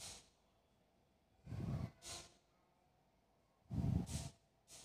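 A person's heavy breaths close to the microphone, twice, about two seconds apart; each is a low puff followed by a short hissing breath.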